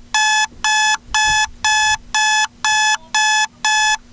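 Digital alarm clock going off: a steady run of identical short electronic beeps, about two a second.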